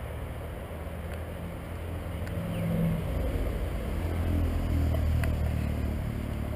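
Road traffic: a motor vehicle's engine passing, its low sound swelling around the middle and easing off near the end.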